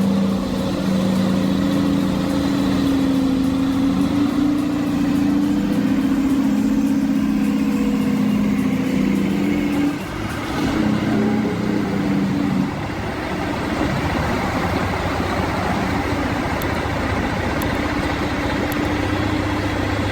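Heavy logging truck's engine running steadily under load, its tone changing and dropping about ten seconds in and settling lower for the rest.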